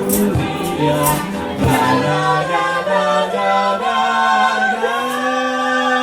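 Three voices singing a close-harmony vocal arrangement, with a few hand-percussion strikes in the first couple of seconds. About five seconds in they settle onto a held chord.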